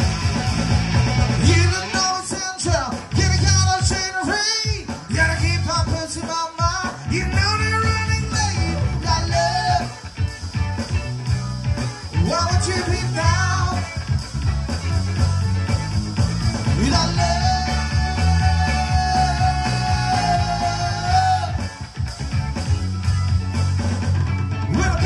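Live cover band playing an upbeat rock-pop number: a steady bass and drum groove under a melodic lead line that glides between notes, with one long held note about two-thirds of the way through.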